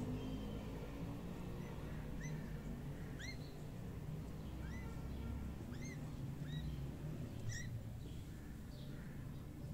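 A small animal's short, high, arched chirps, repeated about once a second for several seconds and growing fainter near the end, over a steady low hum.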